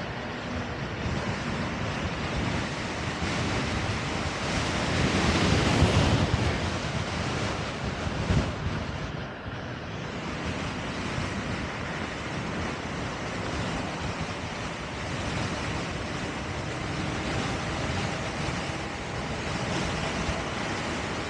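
Wind rushing over the microphone, with tyre and road noise, as an Extreme Bull Commander GT Pro electric unicycle is ridden along the street. The rush swells to its loudest about five to six seconds in, with a brief gust just after eight seconds, then steadies.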